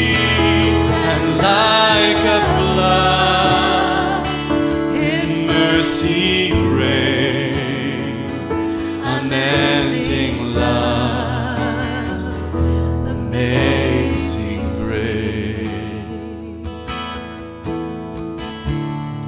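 Live worship music: acoustic guitar and digital piano playing under a woman's singing voice, held notes with a waver in them. The music grows gradually quieter toward the end.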